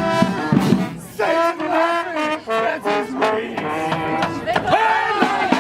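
Street brass band playing: horns hold a chord over drums, then about a second in the drums drop out and the horns play a phrase alone, with notes that bend up and down.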